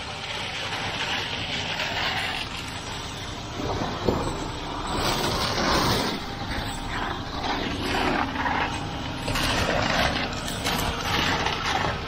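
Concrete pump truck running under load, pushing concrete out through the end hose, with the wet mix splattering onto the slab base.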